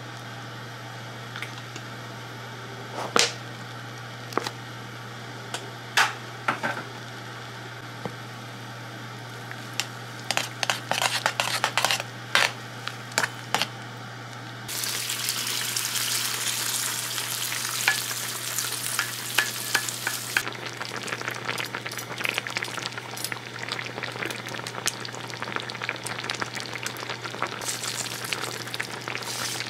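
Milk-and-cream sauce sizzling and simmering in a metal frying pan, with scattered clicks and a quick run of scraping clicks as a utensil stirs it against the pan. About halfway through the sizzle suddenly gets much louder and hissier, easing somewhat a few seconds later; a steady low hum sits underneath.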